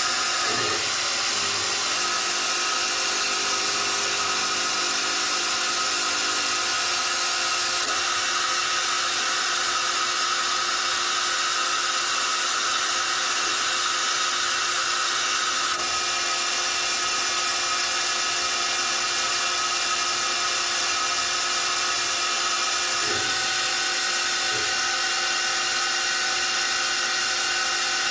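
Citizen L12 Swiss-type CNC lathe running a machining cycle: a steady hiss with several steady whining tones, whose pitches shift a couple of times as the cycle goes on.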